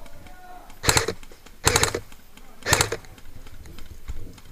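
Airsoft rifle firing three short bursts of rapid shots, about a second apart.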